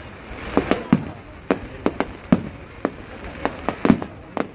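Fireworks display: aerial shells bursting in quick, irregular succession, about a dozen sharp bangs, some landing close together in pairs.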